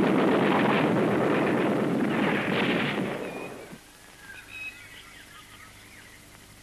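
Cartoon war sound effect: a dense, crackling rattle of gunfire and explosions that dies away about three and a half seconds in, leaving only faint high chirps.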